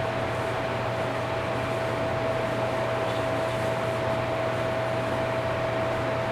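Steady mechanical hum and hiss from a running machine, with one constant high-pitched whine over it.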